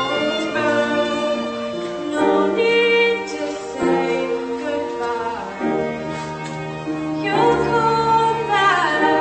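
Music: a singing voice over bowed strings, held notes with a wavering vibrato in the last couple of seconds.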